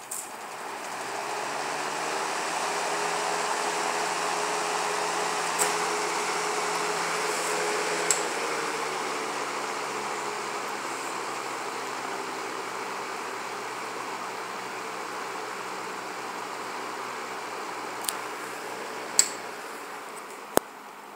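1969 GE W-25 three-speed box fan running: a steady rush of air over a low motor hum, with a few sharp clicks spread through. The motor has a little hammering in it, which the owner puts down to a dry front bearing.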